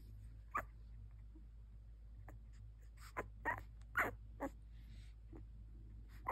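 Two-week-old doodle puppies squeaking and whimpering faintly: a string of short, separate peeps, several close together about three to four seconds in.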